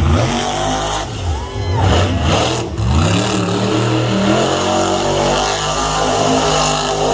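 Monster truck engine revving up and down, then held at high revs.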